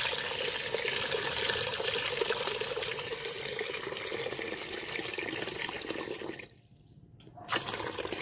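Water poured in a steady stream into a stainless steel pot of sugar, splashing as the pot fills. The pour breaks off about six and a half seconds in and starts again for a moment near the end.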